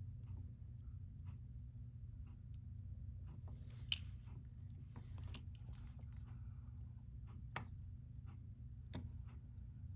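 Small sharp clicks and taps of tools and parts being handled while a pocket watch movement is worked on, with one sharper click about four seconds in, over a steady low hum. A faint fast, even ticking runs underneath, about five a second.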